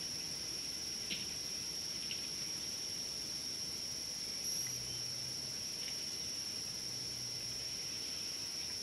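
Steady, high-pitched insect drone that holds one unbroken tone, with a few faint snaps and a faint low hum twice.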